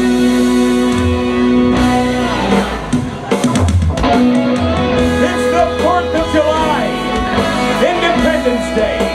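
Live rock band playing: an electric guitar holds a chord, drops in a falling sweep about two and a half seconds in, then moves into bending lead lines over the band.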